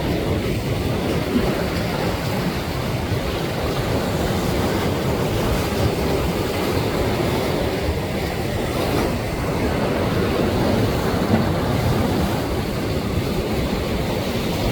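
Ocean surf rushing steadily, a continuous low rumble.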